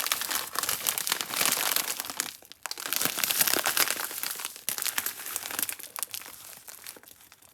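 Plastic candy wrapper crinkling as it is handled and unwrapped, a dense run of small crackles that pauses briefly about two and a half seconds in, then goes on and fades out near the end.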